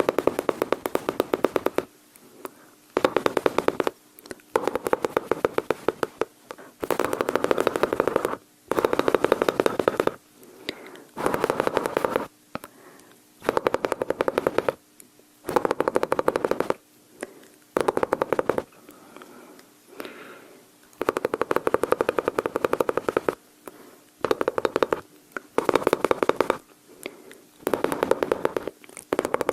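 A person's mouth imitating machine-gun fire close to the microphone: a long string of rapid rattling bursts, each a second or two long, with short pauses between them.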